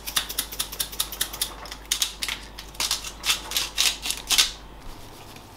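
Hand-twisted salt mill being worked, a fast run of dry clicks and crunches that stops about four and a half seconds in; the salt is slow to come out.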